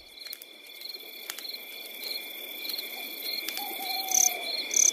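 Nighttime-style nature ambience of insects, like crickets, chirring steadily in high pulsing trills, fading up gradually. A short falling call comes in a little before the end, with a couple of brief high chirps.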